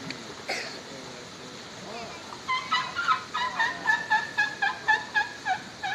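Asian elephants squeaking: from about halfway through, a rapid string of short high squeaks, about four a second. Before that there is a single knock and a brief gliding call.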